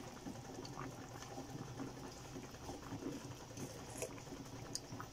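Pot of sinigang fish-and-vegetable broth simmering on a gas burner at medium heat, bubbling faintly with a few small pops and clicks.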